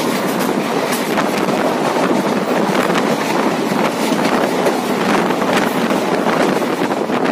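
Passenger train running along the track, its wheels clattering in quick, irregular clicks over a steady rumble.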